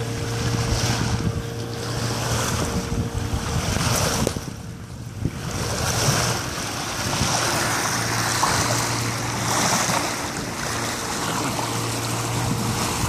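Wind buffeting the microphone and water rushing along a sailboat's bow, with a steady low hum underneath. The noise drops briefly about four and a half seconds in.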